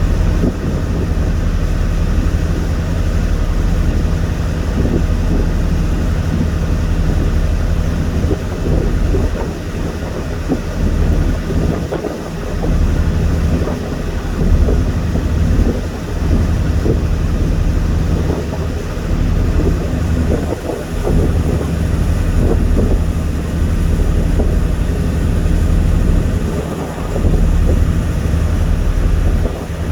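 Steady low drone of a ship's engine heard on board, with wind rumbling on the microphone and rising and falling in gusts.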